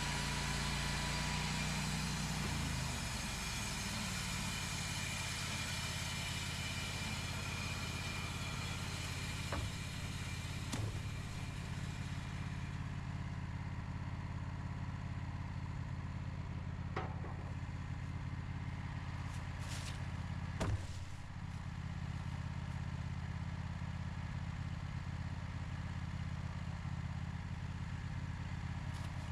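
Portable sawmill's engine running steadily. A broad hiss over it dies away about twelve seconds in, leaving the engine running on alone. Several single sharp knocks are heard along the way.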